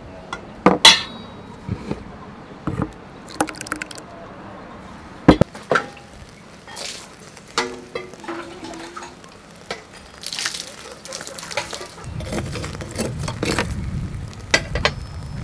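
Scattered clinks and knocks of a small ceramic bowl and spoon being handled and set down on a wooden table. Near the end a steady crackling hiss of skewered cuttlefish grilling over a fire takes over.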